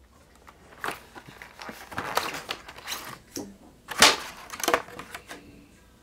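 Plastic blister pack being handled and pried open: a run of sharp crackles and clicks, the loudest about four seconds in.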